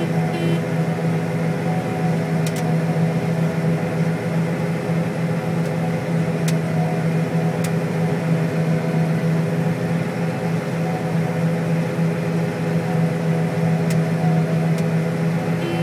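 John Deere STS combine harvesting soybeans, running with a steady drone and a strong constant low hum, with a few faint clicks.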